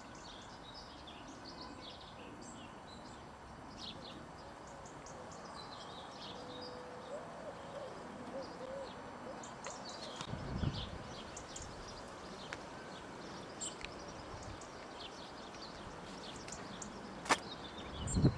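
Faint birdsong, many short chirps and calls, over a quiet outdoor background. There is a brief low rumble about ten seconds in and a single sharp click near the end.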